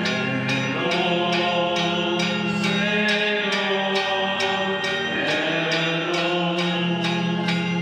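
Music with a steady beat and sustained chords, with sung voices gliding over it.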